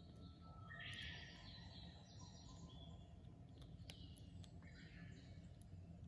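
Masked lovebird chick giving faint chirping calls in two short spells, about a second in and again around four seconds in, with a few light clicks.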